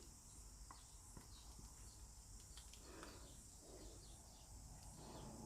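Near silence: faint room hiss with a few faint ticks.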